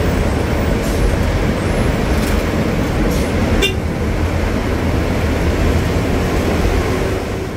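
A bus heard from inside its cabin: engine and road noise, loud and steady. A short horn toot sounds about three and a half seconds in.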